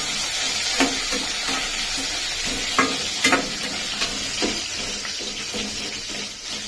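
Garlic, ginger, green chillies and curry leaves sizzling in hot oil in a stainless steel pan. They are stirred with a perforated steel skimmer that clinks against the pan several times. The seasoning is being lightly sautéed.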